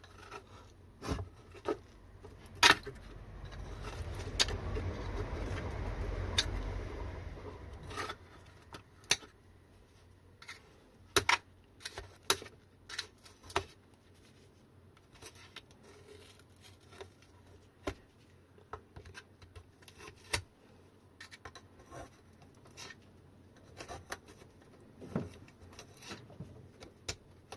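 Scattered clicks, taps and small metallic clinks of tools and battery parts being handled on a workbench. A rushing noise swells up about three seconds in and stops about eight seconds in.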